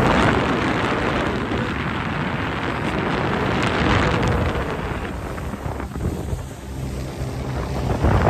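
Wind buffeting the phone's microphone on a motorboat running at speed, over the boat's engine and water rushing past the hull. The wind noise eases somewhat in the second half.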